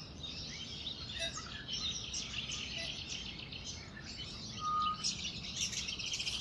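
A chorus of small birds chirping and twittering in many overlapping voices, with one short, clear whistled note a little under five seconds in.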